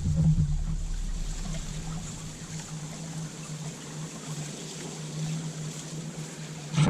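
Honeybees buzzing around an open top-bar hive: a steady, even hum. A low rumble underneath fades out about two seconds in.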